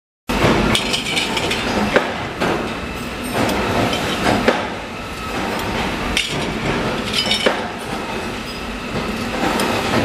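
Metal recessed drawer-pull parts clinking and knocking as they are handled and worked at a bench press, sharp irregular impacts over a steady workshop machine noise.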